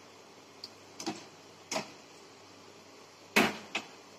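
Momos deep-frying in hot oil in a kadai: a low steady sizzle broken by about five sharp pops and crackles of spitting oil, the loudest a little past three seconds in.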